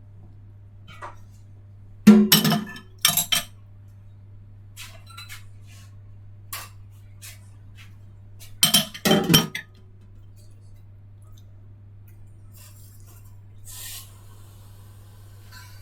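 Crockery and glassware clinking and clattering as they are handled. The sound comes in two loud bursts, about two seconds in and about nine seconds in, with lighter scattered clinks between them. A steady low hum runs underneath.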